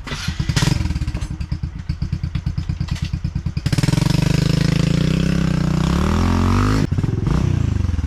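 Motorcycle engine, first chugging at low revs with an even beat, then pulling louder and steadier before the revs fall away as it slows. It breaks off abruptly near the end.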